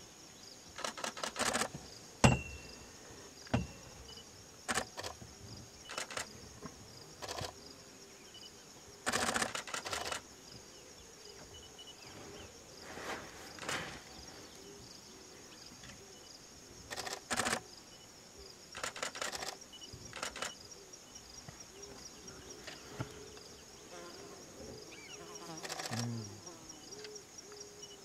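Forest ambience: a steady high insect drone, broken every few seconds by short, rapid rattling bursts, with one sharp click a little over two seconds in.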